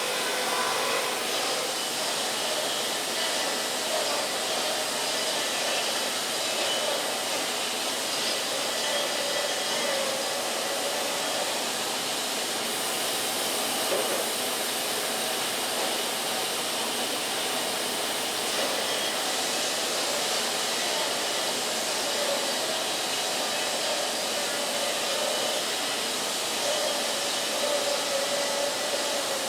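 Wood-Mizer band sawmill running steadily: an even, unbroken mechanical rush with a faint wavering hum underneath.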